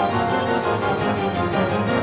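Orchestral background music with sustained chords.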